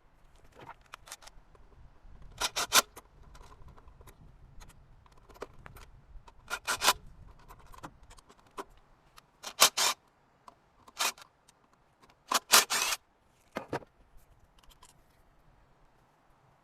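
Parts in an engine bay being handled and moved aside: short clusters of sharp clacks and scrapes every few seconds, with a faint low rumble underneath during the first half.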